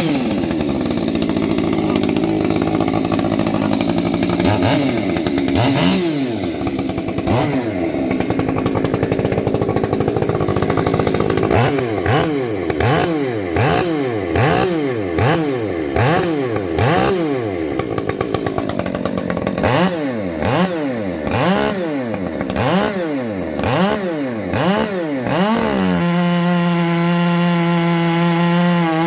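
Husqvarna 564XP chainsaw engine running just after starting, after sitting for three days. The throttle is blipped over and over, so the engine revs up and drops back about once a second. Near the end it is held at a steady high speed.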